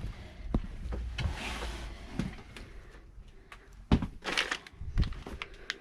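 Hands working on water pipes and fittings in a cramped space: scattered knocks and clicks, the sharpest just before four seconds, with two short rasping bursts, about a second in and again a little after four seconds.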